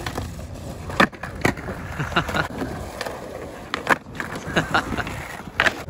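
Skateboards on concrete: several sharp clacks of boards popping and slapping down, with wheels rolling between them.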